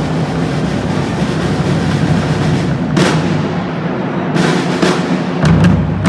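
Costumed drummers' side drums playing a continuous roll, with a few heavier accented strokes about halfway through and near the end.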